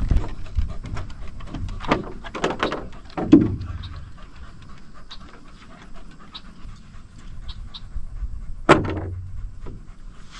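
A dog panting in quick rhythmic breaths, hot from walking in full sun. A single sharp knock sounds near the end.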